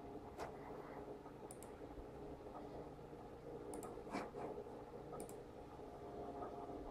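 A few light, scattered clicks from a computer keyboard and mouse as a search is typed and the search button clicked, several of them coming as quick pairs, over a steady faint hum.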